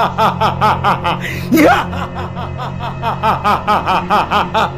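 A man's loud, maniacal laughter: a long, rapid string of 'ha-ha' bursts, about six a second, broken about one and a half seconds in by a rising yell. It plays over a steady low musical drone.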